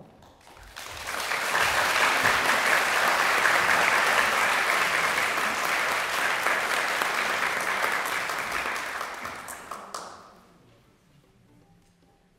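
Audience applauding, swelling up over the first couple of seconds, holding steady, then dying away about ten seconds in.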